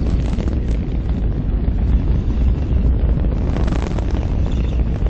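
Rocket explosion: a steady, heavy low rumble from the burning fireball, with crackling and popping over it that thickens about three and a half seconds in.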